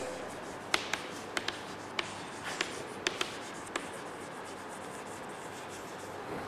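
Chalk writing on a chalkboard: a string of light taps and short scratches through the first four seconds or so, over a faint steady hiss.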